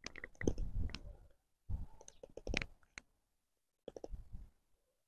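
Cold Steel Survival Edge knife blade pressed by hand into a wooden stick, the wood crackling and clicking in three short spells: in the first second, around two seconds in, and again about four seconds in.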